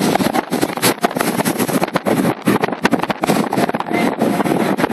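Wind blowing across the microphone in uneven gusts, a loud rushing noise that surges and drops many times.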